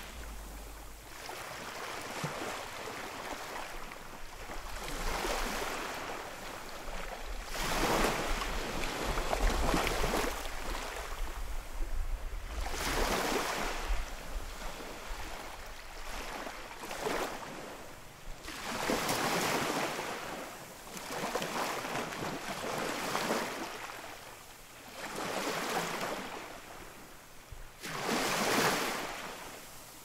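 Sea waves breaking on a shore, the wash swelling and falling in surges about every three seconds.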